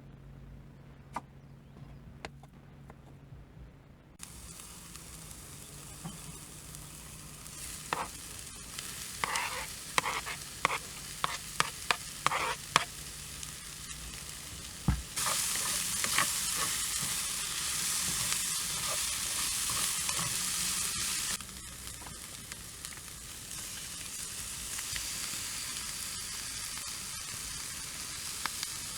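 Chicken and vegetables frying in a pan, sizzling and being stirred. A utensil clicks and scrapes against the pan in a quick run of strokes. The sizzle swells loud for several seconds about halfway through, then settles to a lower hiss.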